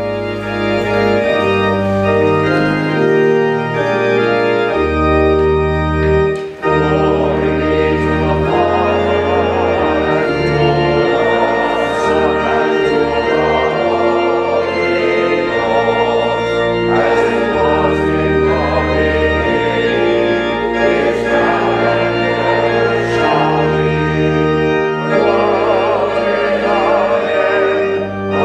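Church organ playing a slow piece of held chords over low bass notes that change every second or two. It starts abruptly.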